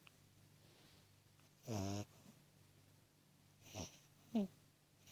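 Sleeping beagle puppy snoring: one longer pitched, squeaky snore about two seconds in, then two short squeaky breaths near the end, the last the loudest.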